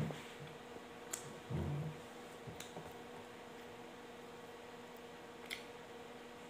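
Quiet room with a steady low electrical hum. There is a soft low thump at the start and another, slightly longer one about a second and a half in, with a few faint sharp clicks scattered through.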